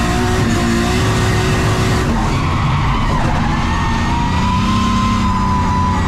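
Nissan S15 Silvia drift car's turbocharged 2JZ straight-six running under throttle through a drift, with tyres skidding and squealing. The sound changes character about two seconds in.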